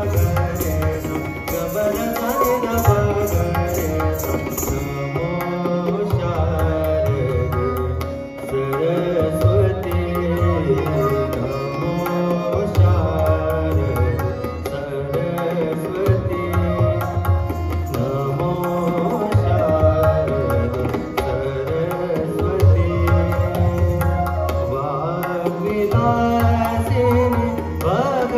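Live Hindustani classical music accompanying a Kathak dance: tabla keeping a steady rhythm under a sliding melodic line.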